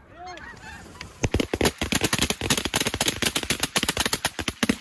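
Snow geese honking, then from about a second in a rapid volley of many shotguns firing together, dozens of sharp shots in quick succession that run to the end.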